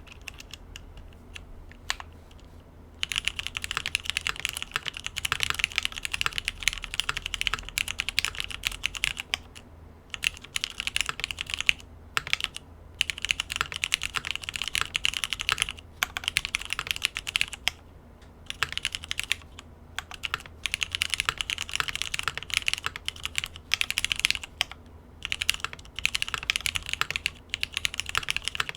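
Typing on a 65% custom mechanical keyboard, a top-mount Void65 with an aluminium plate and Cherry MX1A Black linear switches lubed with Krytox. A few single keystrokes come first, then fast continuous typing in runs of a few seconds with brief pauses between them.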